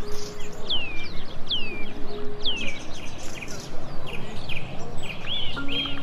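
Songbird calls: clear whistled notes sliding down in pitch, about one a second, then shorter chirps near the end, over steady background noise.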